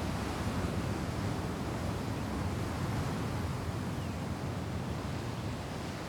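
Ocean surf washing ashore in a steady rush, with some wind noise on the microphone.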